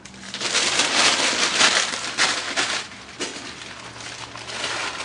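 Paper crackling and rustling at a Weber charcoal chimney starter whose briquettes have had a false start. It is loudest over the first three seconds and swells again near the end.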